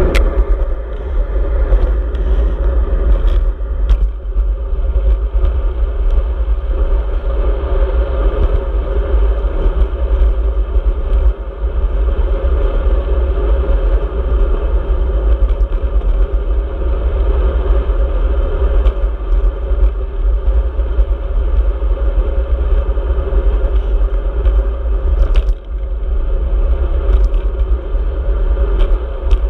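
Wind buffeting and road rumble on a handlebar-mounted action camera as a road bike rolls along a tarmac road: a loud, steady low rumble with a few short knocks.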